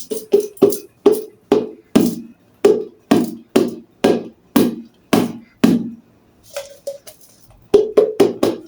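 A run of sharp, hollow knocks, about two a second, then a short pause and a quicker burst of knocks near the end.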